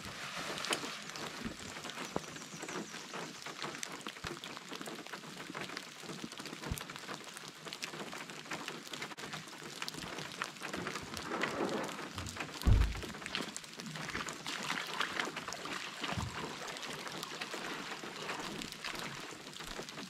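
Steady rain falling on open water and a stony shore, a dense haze of fine drop ticks. About halfway through comes a single heavy thump, with scuffing and water splashing as a canoe is pushed off and waded out.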